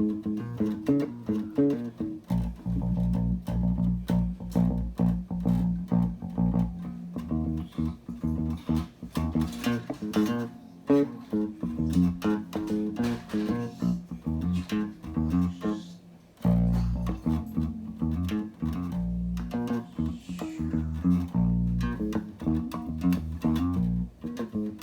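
A guitar played through a vintage tube compressor: a run of plucked notes, heavy in the low end, with a brief pause about two-thirds of the way through.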